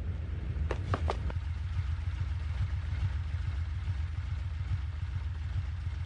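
Motorcycle engine idling, a low steady rumble, with a few short clicks about a second in.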